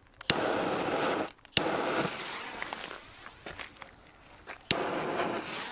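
Pistol-grip jet torch lighter clicking on and hissing in three short blasts of about a second each, lighting firecracker fuses.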